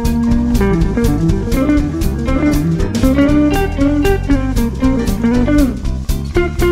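Hollow-body electric archtop guitar playing swing-blues single-note solo lines, the notes changing quickly. Under it runs a backing track with a steady beat and a low bass part.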